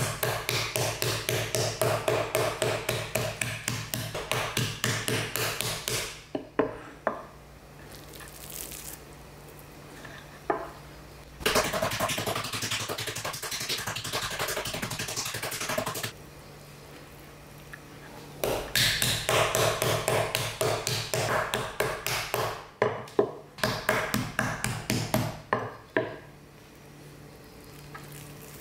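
Metal-headed meat tenderizer mallet pounding a pork cutlet flat on a wooden cutting board: fast repeated knocks, several a second, in spells with short pauses between them. Near the end the knocking stops and only soft handling of the meat is heard.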